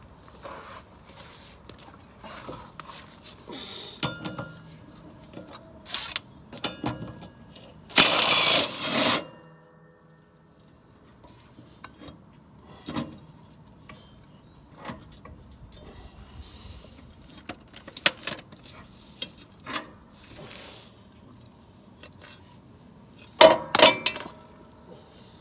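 Cordless DeWalt impact wrench running in one burst of about a second on a mower blade bolt about eight seconds in, among scattered metal clinks and taps from handling the blade, bolt and tools under a zero-turn mower deck. A quick cluster of sharp metal clanks comes near the end.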